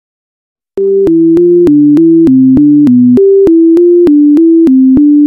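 Simple electronic synthesizer tune of short, evenly spaced notes, about three a second, starting about a second in, in a higher and a lower line moving together, each note beginning with a click.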